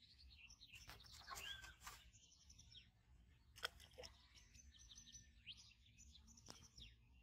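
Faint small birds chirping and twittering, with short high notes and one rising whistle. A single sharp click about halfway through stands out above them.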